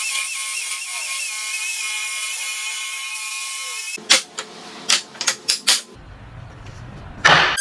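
An electric power tool in woodworking runs with a steady whine for about four seconds, then stops. Several sharp knocks follow, and there is one loud burst near the end.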